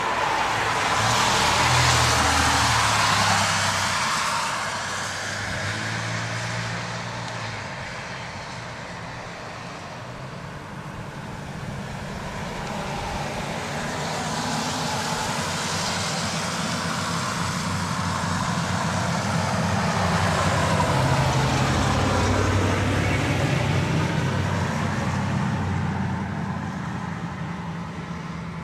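Road traffic: engines running and tyre noise that swells and fades as vehicles pass, loudest about two seconds in and again around twenty seconds in.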